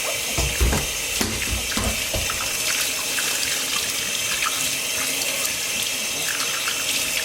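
Tap water running steadily as a puppy is rinsed off under it. There are a few low knocks and splashes in the first two seconds or so.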